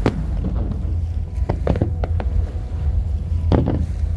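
Aerial fireworks shells bursting in a string of sharp bangs at uneven intervals, about six in all, over a constant low rumble.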